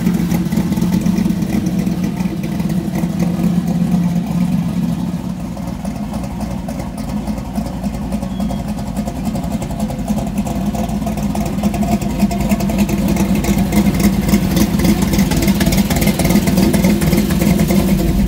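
Small-block Mopar V8 of a 1968 Dodge Dart drag car idling steadily, built to about 530 horsepower. It dips a little in level partway through and grows louder near the end.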